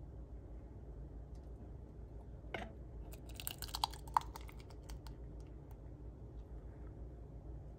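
A measuring scoop knocking and scraping against a stainless steel canning funnel while jam is poured into jars. There is one knock about two and a half seconds in, then a quick run of light clicks and a couple of short metallic pings around the four-second mark.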